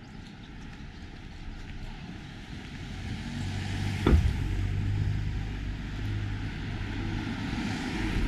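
A motor vehicle approaching and passing on the street, its engine a steady low hum growing louder about three seconds in. A single sharp thump about four seconds in is the loudest moment.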